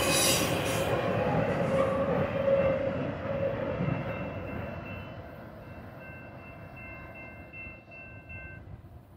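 The tail end of a long Union Pacific intermodal train, flatcars loaded with trailers and containers, rolling away on the rails, its wheel and car noise fading steadily into the distance. A brief hiss of wheel squeal at the start, and a faint thin whine over the middle and later seconds.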